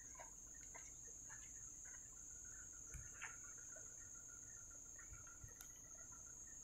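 Faint insect sounds: a steady high-pitched drone, with soft chirping notes repeating in a quick run from about three seconds in and a few light ticks.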